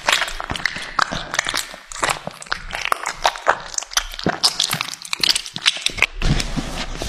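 A cat chewing and licking meat close up: irregular wet clicks, smacks and small crunches of its teeth and tongue, getting denser near the end.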